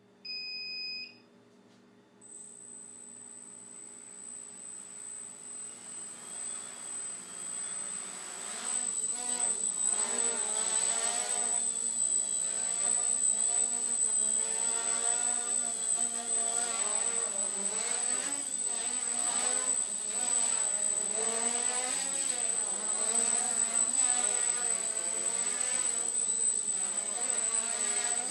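Micro quadcopter's four Turnigy 1811 2900 kV brushless motors with 5030 propellers: a short beep, then the motors spin up and buzz loudly from about eight seconds in as it flies, their pitch wavering up and down with quick throttle changes. A steady high-pitched whine runs under it.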